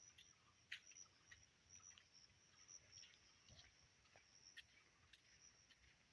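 Near silence: faint outdoor ambience with a thin, high, broken chirping and a few soft clicks.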